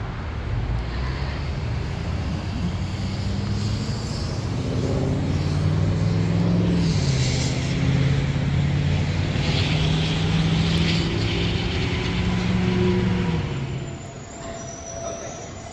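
A motor vehicle's engine runs and grows louder, with its pitch dropping about seven seconds in as it goes past. It fades near the end.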